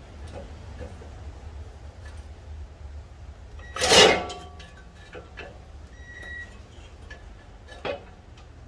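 Cordless reciprocating saw being handled with its blade set against the steel exhaust pipe: light knocks and scrapes over a steady low hum, with one short, loud burst about four seconds in and a smaller knock near the end.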